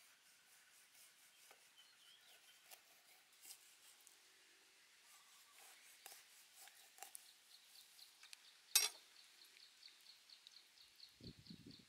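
Chef's knife scoring the scaled skin of a whole red fish on a wooden chopping board: faint scraping and light ticks, with one sharp knock about nine seconds in. From about seven seconds in, high chirps repeat several times a second in the background.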